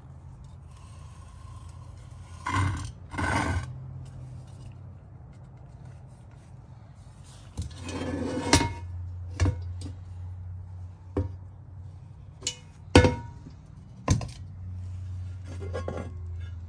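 A cast iron Dutch oven and its lid being handled on a metal surface: a brief scraping rattle and a run of sharp iron clinks and knocks, the loudest about three-quarters of the way through, over a steady low hum.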